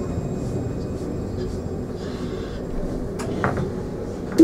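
Alstom Citadis Luas tram running along its track, heard from inside the driver's cab as a steady rumble of wheels on rail with a few faint clicks about three seconds in. A loud steady tone starts right at the end.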